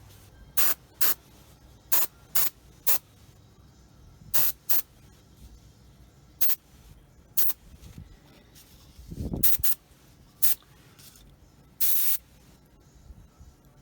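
Airbrush spraying black primer in about a dozen short hiss bursts, each a fraction of a second, at irregular intervals. A brief low rumble about nine seconds in.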